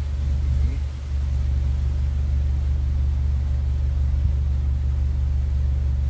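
A steady, even low hum of a machine running nearby.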